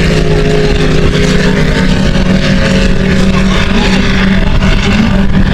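Motorboat engine running with a steady, even drone.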